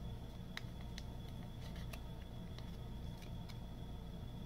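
Faint scattered ticks and small crinkles of a thin plastic card sleeve being handled as a trading card is worked into it, over a steady low hum and a faint high whine.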